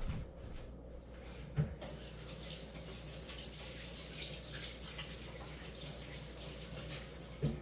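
Kitchen sink tap running for about five seconds, starting about two seconds in and stopping near the end, with a couple of short knocks before it starts and as it stops.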